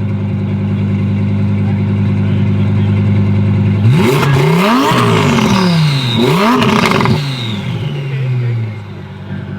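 Twin-turbo Audi R8 V10 engine held at steady revs, then launching hard about four seconds in. The pitch climbs and drops with about three quick gear changes, then the engine note falls and fades as the car pulls away.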